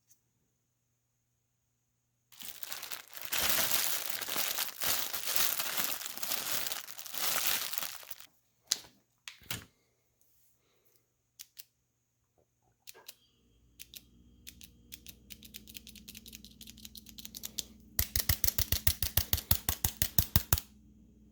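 Several seconds of crinkling and rustling, then a steady hum with clicks that build into a loud, even, fast ticking of about ten ticks a second near the end. The ticking comes from a TV's power supply that will not start, a fault traced to failed capacitors.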